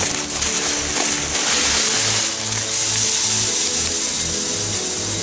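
Perlite granules being poured into a steel pail can, a steady hissing rush, over background music with a regular bass beat.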